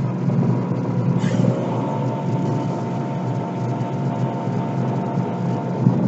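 Air compressor running steadily and loud, heard muffled through a closed glass door, as a blow gun blows compressed air into a fan heater to clear out dust; a brief sharper hiss of air about a second in.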